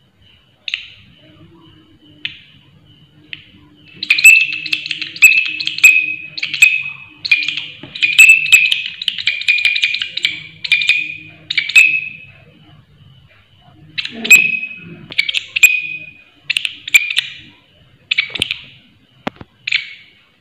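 Large green katydid (walang kerik) stridulating loudly: shrill, rasping chirps, packed close together from about four to twelve seconds in, then coming singly about once a second, over a faint steady high tone.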